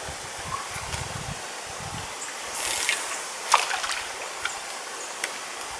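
A fishing cast with a spinning rod, over wind on the microphone and lakeside ambience: a short hiss of line about two and a half seconds in, then a sharp click, with a few faint ticks after.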